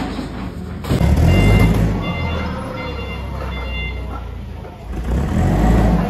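Warehouse forklift running and manoeuvring with a low engine rumble that swells twice, and its reversing alarm beeping in a short run of evenly spaced beeps in the middle.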